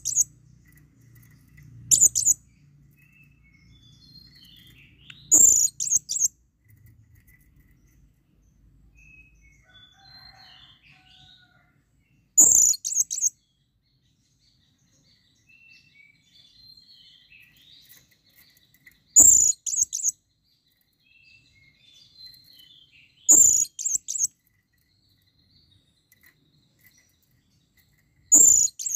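Blue-crowned hanging parrot (serindit) giving short bursts of sharp, very high-pitched calls, one every few seconds, with faint softer chirps in between. It is the male's call to a female.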